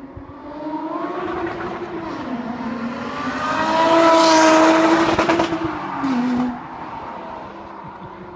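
Supercharged V6 of a Lotus Evora S, Komo-Tec tuned to 390 hp, accelerating past: the engine note rises, dips once, is loudest about four seconds in as the car goes by, then drops away.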